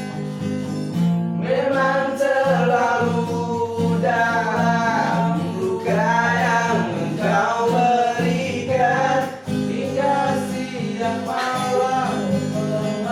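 Acoustic guitar strumming chords under a voice singing a wavering, drawn-out melody with no clear words.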